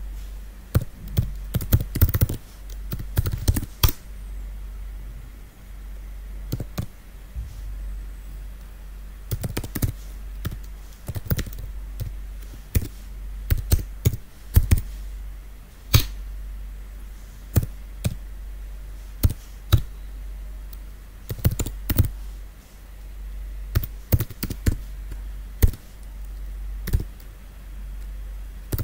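Computer keyboard being typed on, with irregular clusters of key clicks and short pauses between them, over a steady low hum.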